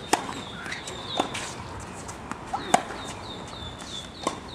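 Tennis ball struck by rackets four times in a rally, the hits about a second and a half apart, with short high chirps in between.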